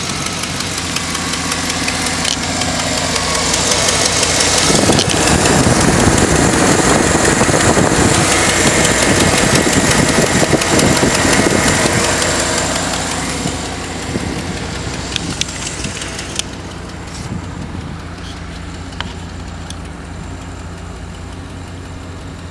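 2007 Cadillac Escalade's 6.2-litre L92 Vortec V8 idling steadily, growing louder for several seconds in the middle and then settling again.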